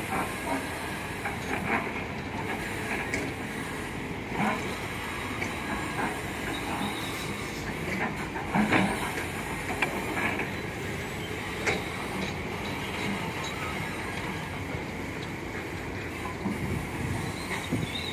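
Several diesel hydraulic excavators working together: a steady engine and hydraulic drone with occasional sharp metallic clanks and squeals from buckets and steel tracks.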